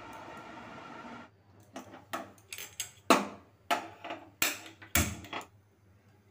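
Metal kadai being set down and shifted on a gas stove's burner grate: a run of irregular clanks and knocks, the loudest about three seconds in.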